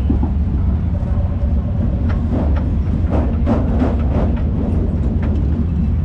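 Steady low rumble of sprint car engines running.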